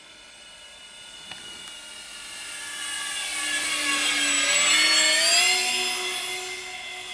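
Twin brushless electric motors and three-blade propellers of an Avios Albatross HU-16 RC flying boat whining as the model makes a low pass. The sound grows steadily louder to a peak about five seconds in, with the pitch shifting as it goes by, then fades.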